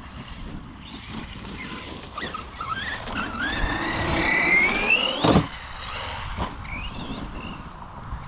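Brushless motor of an electric RC truck whining under throttle, its pitch climbing steadily for about two seconds, then a hard thump just after five seconds in, with a smaller knock about a second later.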